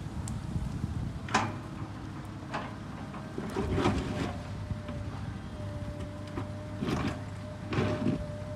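Heavy construction machine running with a steady low engine rumble, with several sharp metallic knocks and clanks at irregular intervals.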